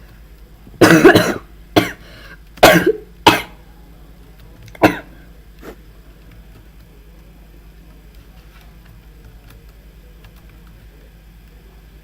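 A person coughing and clearing their throat in a handful of short, loud bursts over the first five seconds, then a steady low hum.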